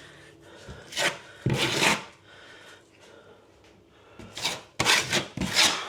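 Short scraping, rubbing strokes of a piece of plaster cornice being test-fitted against the wall, four strokes in two pairs.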